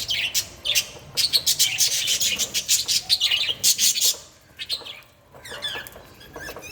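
Budgies chirping, a busy run of quick high chirps that dies down about four seconds in and picks up again, softer, near the end.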